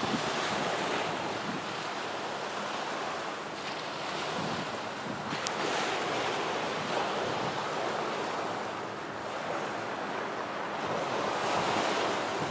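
Small waves washing steadily onto a pebble beach, with wind on the microphone.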